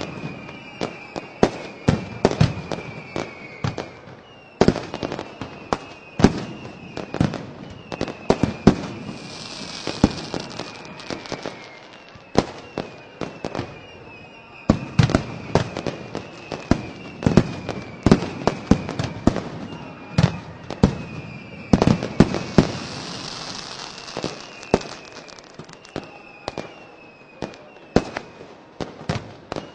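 Aerial fireworks going off in quick succession, with many sharp bangs and cracks. Between them come repeated short high whistles that dip slightly in pitch, and twice a few seconds of high hissing.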